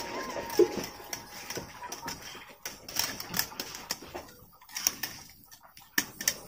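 Skewered squid frying in oil on a hot metal tray: oil crackling and spitting in irregular sharp pops, sparser in the second half.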